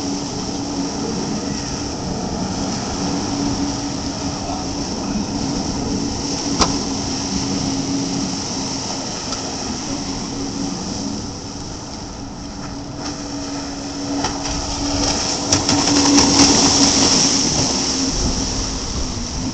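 Jet ski engine running steadily, a constant low hum with a hiss over it. It swells louder, with more hiss, for a few seconds near the end.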